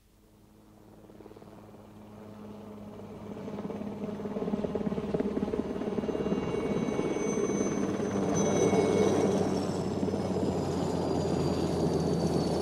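Radio-play sound effect: a whooshing, humming machine-like noise that fades in from silence and swells over about five seconds, then holds, with thin high tones above it, one slowly falling in pitch.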